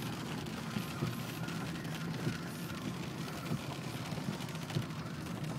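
Car engine and road noise heard from inside the cabin, a steady low hum with a few light knocks.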